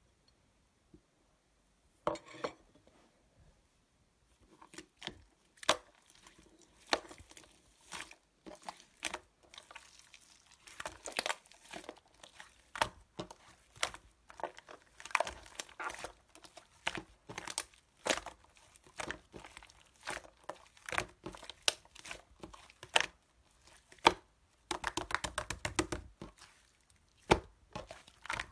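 Yellow clay slime being squeezed and poked by hand, giving irregular sticky clicks and crackling pops. It starts after a few quiet seconds and has a dense run of rapid crackles a little before the end.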